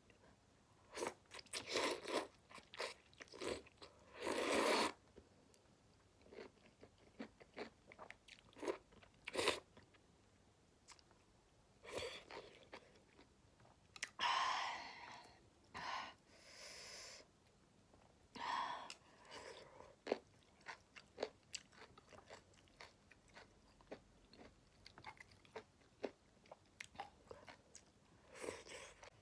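Close-miked eating of rice noodles: irregular wet chewing and biting, broken by a few longer slurps of noodles.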